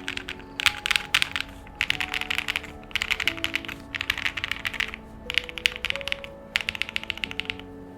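Typing on a Class65 mechanical keyboard with lubed Alfilon Blue Sky linear switches and PBT double-shot cherry-profile keycaps. The keystrokes come in quick runs about a second long with short pauses between them, over background music with sustained notes.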